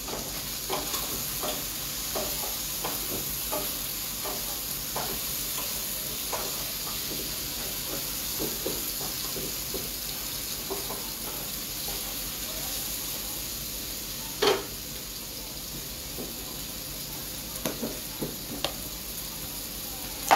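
Liver sizzling in a frying pan over a high gas flame, with the small taps and scrapes of a utensil stirring it. There is a louder knock about two-thirds of the way through, and a few taps near the end.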